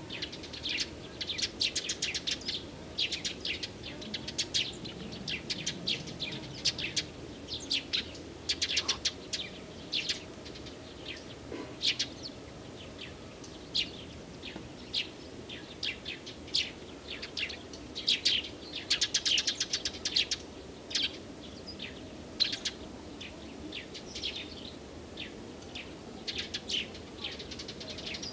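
Small songbirds chirping and singing: many short, high notes and quick trills following close on one another.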